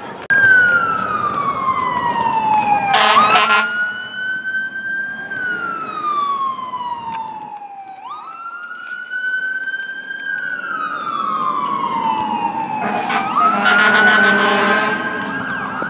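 An emergency vehicle's siren wailing: the pitch climbs quickly, then falls slowly over a few seconds, three times over. A harsh noisy blast comes in about three seconds in and again near the end.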